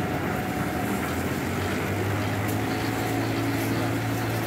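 Engine-driven drum concrete mixer running with a steady hum that strengthens about two seconds in, under a general hubbub of building-site work.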